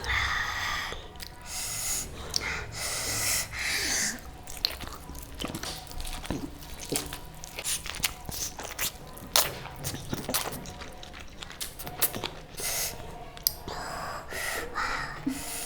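Close-miked eating: wet chewing and lip smacks with frequent sharp mouth clicks, and several loud nasal breaths and sniffs.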